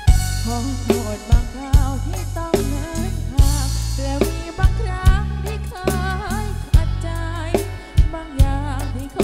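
Live band playing through a large outdoor PA system during a sound check: a woman sings a wavering melody into a microphone over a deep electric bass line and a steady drum beat, the bass notes booming from big stacked subwoofer cabinets.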